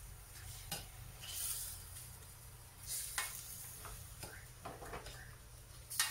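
Chicken pieces sizzling in a stainless steel frying pan while being stirred with a metal spoon, with scrapes and a few sharp clinks of the spoon against the pan, the loudest near the end.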